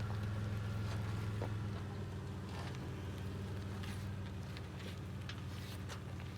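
Toyota 4Runner's engine running with a steady low hum that eases slightly a couple of seconds in, with a few faint clicks over it.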